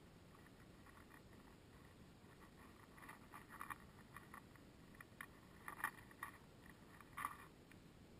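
Faint, irregular soft crackles and clicks of hay being disturbed by a rabbit close to the microphone, in a few small clusters against near silence.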